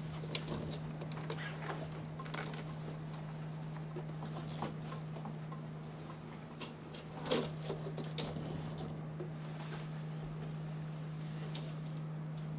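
Scattered light scratches and clicks of a cat's claws catching in curtain fabric as it climbs and hangs on, with one louder rustling scrape about seven seconds in. A steady low hum runs underneath.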